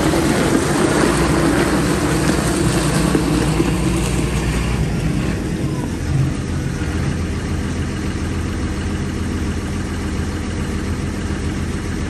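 John Deere 6930 Premium tractor's six-cylinder diesel engine running as the tractor drives past. It is loudest at first and eases off a little about five seconds in, as the tractor moves away, then carries on as a steady rumble.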